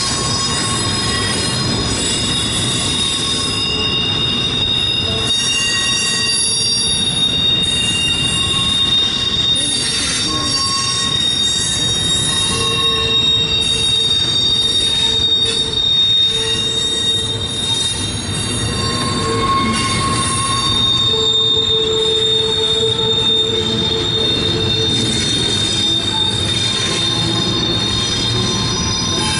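Steel wheels of a CSX intermodal freight train squealing against the rail as the cars roll through the curve of a wye. Several shrill tones hold and shift over one another, above a steady low rumble of the passing cars.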